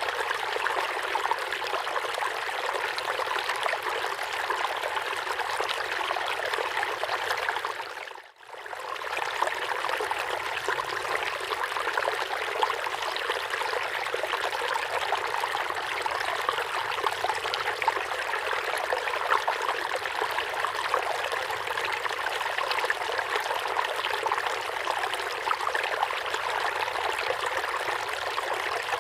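River water running steadily, a continuous rush and trickle of flowing water. About eight seconds in it fades out briefly and comes back.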